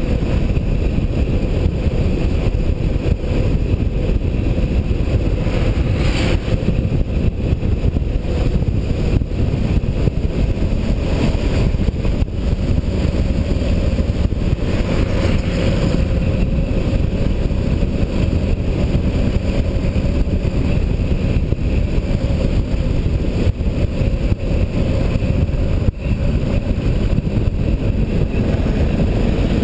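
Steady low rumble of road and wind noise from a vehicle driving along an asphalt road, with no breaks or changes in pace.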